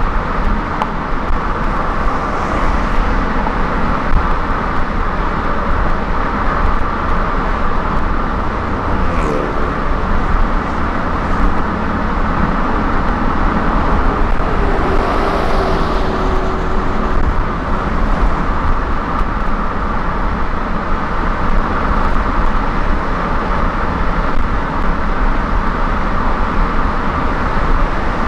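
A car driving at highway speed, with steady road, tyre and engine noise. A tone drops in pitch about nine seconds in, and a brief hiss swells and fades around the middle, as from a passing vehicle.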